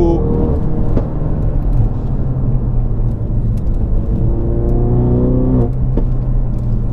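Ford Focus RS Mk3's turbocharged 2.3-litre four-cylinder with a Scorpion cat-back exhaust, heard from inside the cabin accelerating through the gears. The revs drop for a gear change just after the start, then climb again for about two seconds and cut off at a shift near the end, followed by a few sharp cracks.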